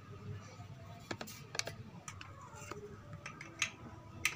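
Irregular light clicks and taps of a saw-blade sword with a wooden handle and metal ring being handled and moved about.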